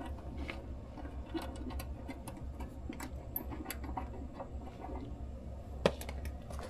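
Light, irregular clicks and taps of small hardware being handled: the bolts for the filler-neck cover being taken out. There is one sharper knock about six seconds in, over a steady low hum.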